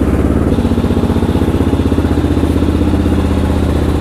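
Kawasaki KLR 650's single-cylinder engine running at idle with an even, rapid pulse as the bike moves off.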